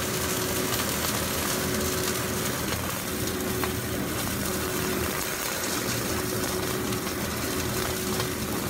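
Chicken thigh steak sizzling in its own rendered fat in a frying pan, a steady hiss, with a faint steady hum under it.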